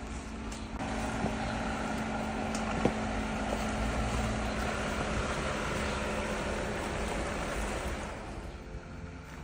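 Off-road vehicle engine running steadily at low speed while crawling along a trail. It grows louder about a second in and eases off near the end, with some wind on the microphone.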